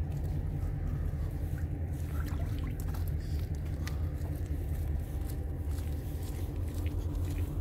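Steady low mechanical drone with a faint hum on top from a car ferry's engines running while it is berthed at the pier.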